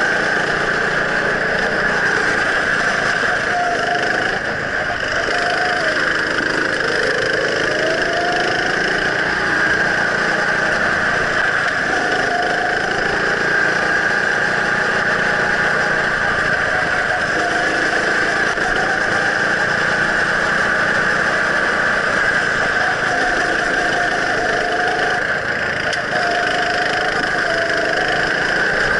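Go-kart engine running at speed, heard close up from on board, its revs rising and falling again and again as the kart is driven through the corners.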